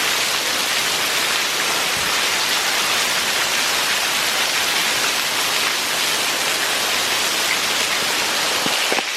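Torrential rain pouring down in a thunderstorm: a loud, steady, even hiss of heavy rain.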